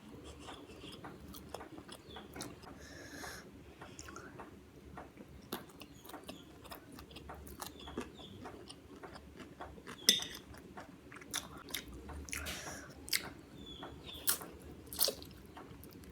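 Close-up chewing and wet mouth sounds of a person eating Indo-Chinese noodles, fried rice and Manchurian, with scattered sharp clicks and smacks, the loudest about ten seconds in.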